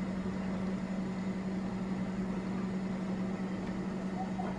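Steady mechanical hum with a constant low tone, like a fan or motor-driven kitchen appliance running.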